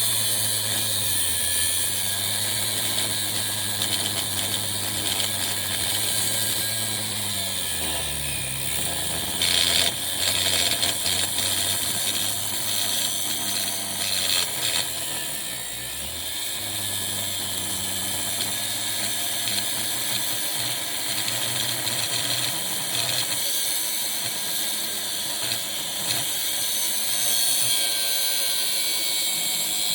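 Angle grinder running with a cutting blade in metal, with a steady high hiss over the motor hum. The motor pitch sags under load about eight seconds in and again around fifteen seconds, with a few brief louder bursts of cutting.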